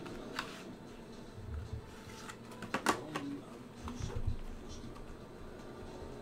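Light handling noise of a plastic graded-card slab being slid out of its cardboard sleeve: soft rustles and scattered small clicks, the sharpest click about three seconds in.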